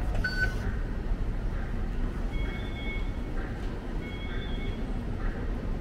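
Steady low rumble of an MTR station concourse, with a short electronic beep near the start and two longer two-note electronic tones in the middle, each under a second, like fare-gate or station signal beeps.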